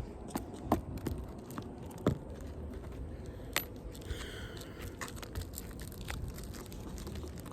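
Asphalt roofing shingles being pried and worked loose: scattered clicks, crackles and scrapes, with a brief squeak about four seconds in.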